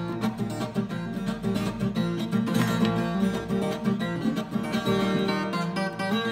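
Viola caipira, the Brazilian ten-string folk guitar, played solo: a continuous picked melody over plucked bass notes.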